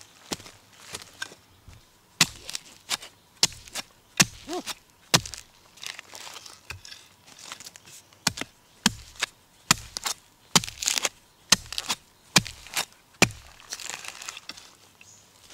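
A narrow-bladed digging tool repeatedly chopping into packed soil and roots, about two sharp strikes a second with a short pause midway, as a bamboo shoot is dug out of the ground.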